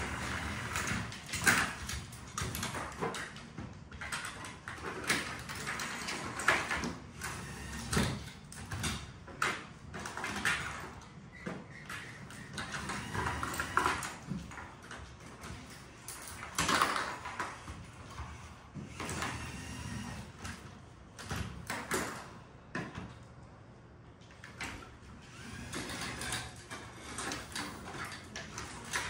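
A small LEGO competition robot at work: electric motors whining up and down, with irregular clacks and knocks of plastic attachments and mission models.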